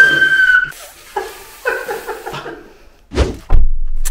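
A high whistled note that stops under a second in, a few short vocal sounds, then two heavy thumps near the end, the second the louder.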